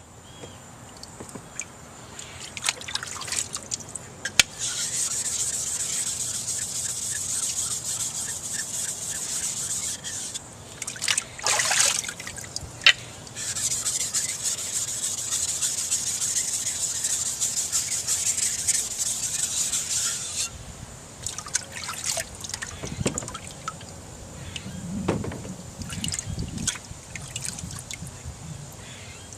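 A steel knife blade being sharpened on a sharpening stone: steady rasping of the edge rubbed back and forth across the stone, in two long stretches, with clicks and knocks of handling between them.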